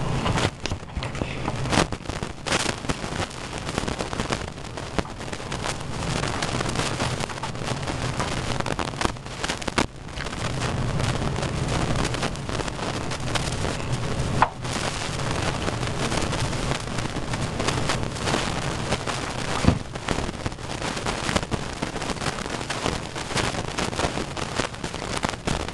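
Steady rain falling during a thunderstorm, an even hiss, with a few sharp clicks or knocks, the loudest a little past the middle.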